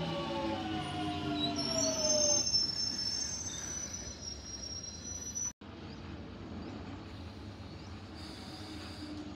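London Underground 1996 Stock Jubilee line train with its traction motor whine falling in pitch as it slows, then a high thin squeal for a few seconds. The sound cuts out briefly about five and a half seconds in, leaving a quieter steady rumble of the train.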